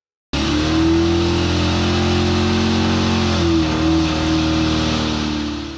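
Car engine held at high revs during a burnout, cutting in suddenly, with a brief dip in revs about three seconds in before it climbs back.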